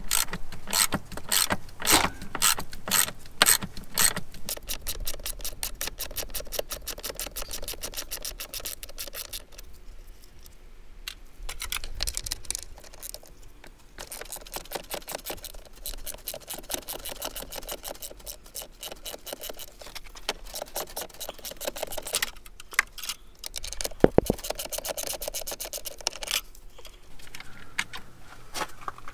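Socket ratchet clicking as it undoes the master cylinder mounting nuts on a C4 Corvette: a few clicks a second at first, then long fast runs of clicks where the work is sped up, with a pause about ten seconds in and one louder metal knock near the end.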